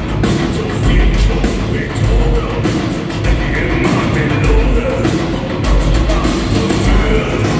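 Neue Deutsche Härte metal band playing live at full volume: drums, bass and distorted guitars with a heavy low end, and the singer's vocals over them.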